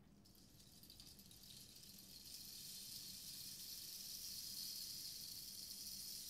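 Wooden rain stick slowly tilted, its filling trickling down through the tube in a soft, rain-like patter that builds over the first couple of seconds and then holds steady.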